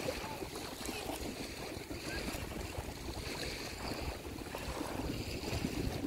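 Wind buffeting the microphone as a steady rumbling noise, with small waves lapping at the shore.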